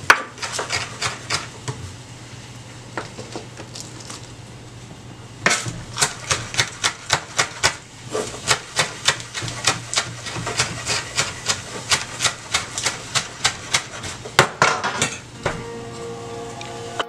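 Chef's knife chopping garlic and scallions on a wooden cutting board: quick, even knocks of the blade on the board at about four a second. The chopping stops for a few seconds after the first two seconds, then runs on steadily. Music comes in near the end.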